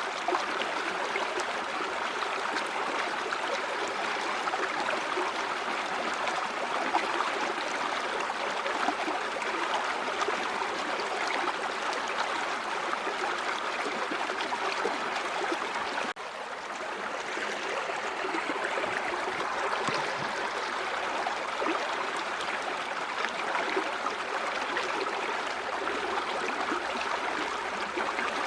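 A river flowing, a steady rush and gurgle of running water, with a momentary drop in level a little past the middle.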